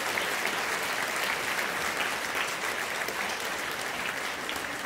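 Audience applauding steadily, the clapping thinning slightly near the end.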